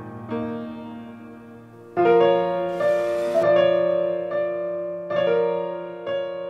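Slow solo piano improvisation: chords struck one after another and left to ring and fade, the loudest about two seconds in.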